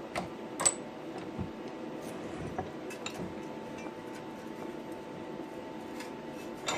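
Scattered light metal clinks and knocks as a cut steel saw-blade piece and workpiece are handled and set in a clamp, over a steady faint hum.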